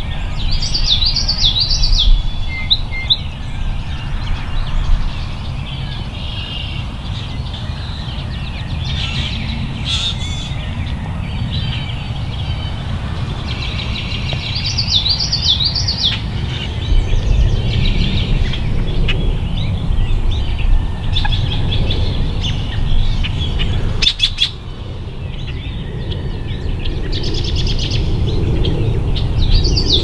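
A songbird sings the same short, looping high phrase three times, about fifteen seconds apart, with softer chirps between, over a steady low rumble. A quick run of clicks comes late on.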